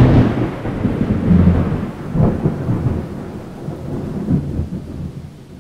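Thunder: a loud clap at the start rolling into a long, low rumble that swells up a few more times and fades away toward the end.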